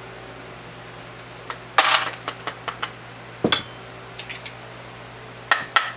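Sharp metallic clicks and clinks from casting lead bullets, as the single-cavity bullet mold is worked and cast bullets drop out: a quick run of them about two seconds in, one ringing briefly, and a few more near the end, over a steady low hum.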